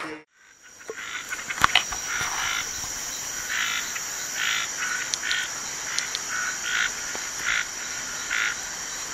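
Frogs calling in short repeated croaks, roughly one a second, over a steady high-pitched insect drone. A couple of sharp clicks about one and a half seconds in are the loudest sounds.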